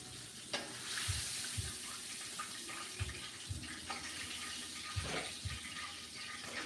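Hot oil sizzling steadily in a frying pan as pieces of fried catfish are lifted out, with a few soft low thumps.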